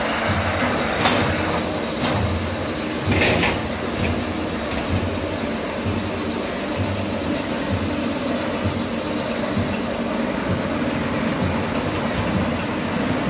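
Veneer peeling line machinery running: a steady hum of electric motors and conveyors, with a few sharp knocks and a short clatter in the first few seconds.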